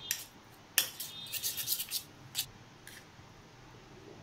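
Steel spoon clinking and scraping against a stainless-steel pot while stirring a thick, oily spice marinade: a run of sharp taps and scrapes, some briefly ringing, quieter near the end.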